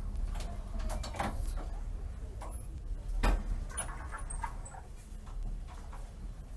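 Inside a passenger train carriage: a steady low rumble with scattered knocks, clunks and faint squeaks, one louder knock about three seconds in.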